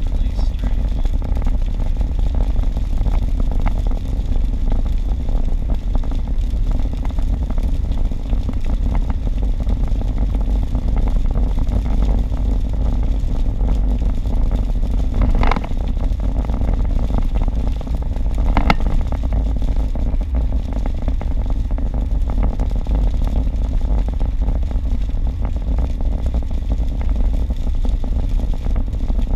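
Steady road and tyre noise heard inside a car's cabin at highway speed on rain-wet pavement: a constant low rumble with a hiss over it. Two brief sharp sounds come about fifteen and nineteen seconds in.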